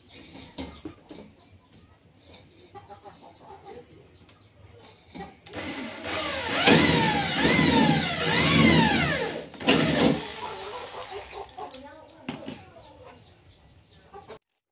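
Corded electric drill run in short bursts, its motor whine rising and falling in pitch about four times over several seconds, with light clicks and knocks of handling before and after.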